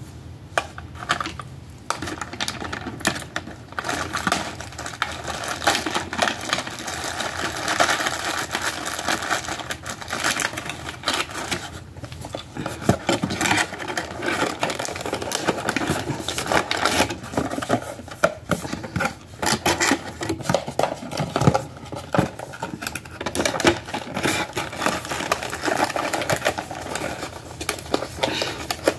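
Plastic packaging crinkling and rustling as it is handled close to the microphone, a dense run of crackles and clicks.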